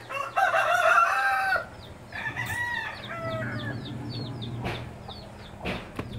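Rooster crowing: one long, held crow lasting about a second near the start, then a second, more broken crow.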